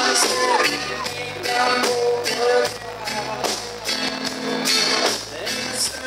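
Live reggae band playing, with electric guitar, bass, keyboards and steady drum beats, heard from the audience.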